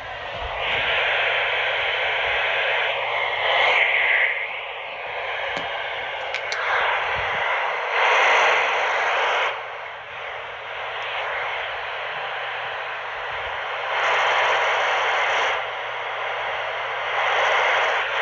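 Radio receiver static: a steady hiss that swells louder several times, over a faint constant low hum.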